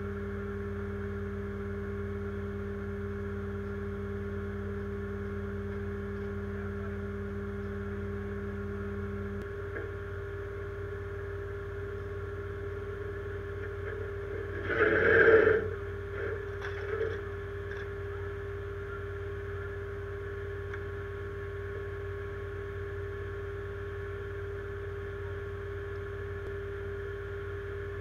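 Steady hum of an idling truck engine with a constant tone; a lower tone in it drops out about a third of the way through. Just past the middle comes a short, louder noisy scrape, followed by two small ones.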